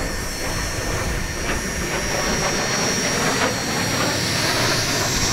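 Fouga CM.170 Magister's twin Turbomeca Marboré turbojets in flight: a steady jet rush with a thin high whine. It grows a little louder in the second half.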